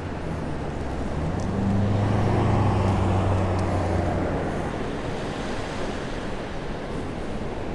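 A motor vehicle driving past, its low engine hum swelling about a second in and fading out by about halfway, over a steady rushing background.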